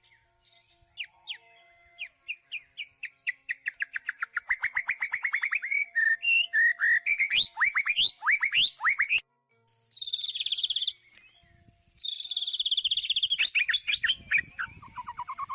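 White-rumped shama singing: a run of quick sweeping whistled notes that speeds up and grows louder over several seconds. After a short break come bursts of fast, high trills, ending on falling notes.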